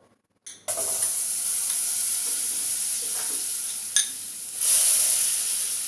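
Butter sizzling as it melts in a hot pan, starting suddenly under a second in with a steady hiss that swells louder around five seconds. There is a light tap about four seconds in.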